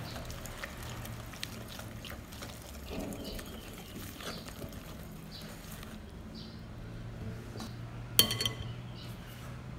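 Whisk beating an egg into thick cookie batter in a glass bowl: a steady run of wet squishing strokes with small clicks. About eight seconds in, a single sharp ringing clink against the glass bowl.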